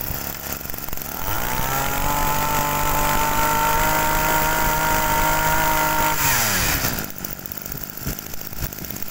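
Small Yanmar brush cutter engine revved up to a steady high speed for about five seconds, then the throttle is let off and it falls back to a low idle.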